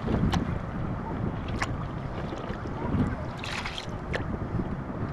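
Wind rumbling on the microphone, with a few sharp clicks and a short rush of hissing noise about three and a half seconds in.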